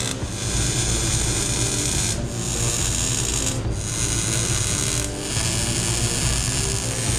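MIG welder arc crackling and sizzling as it plug-welds a steel floor pan, in four runs with short breaks where the trigger is let off between welds.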